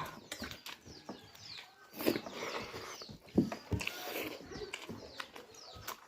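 Close-up eating noises, chewing and mouth smacks, with birds chirping in the background.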